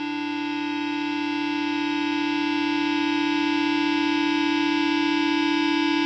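A steady electronic drone of several held tones, slowly swelling louder, as the intro to a thrash metal track.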